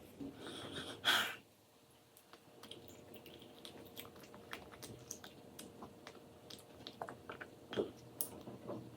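A child chewing food up close, with many short wet mouth clicks and smacks. There is a brief louder noise about a second in.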